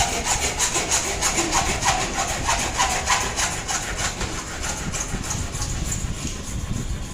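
Hand saw cutting through plastic plumbing pipe, a quick back-and-forth rasp of about four strokes a second that fades off in the last couple of seconds.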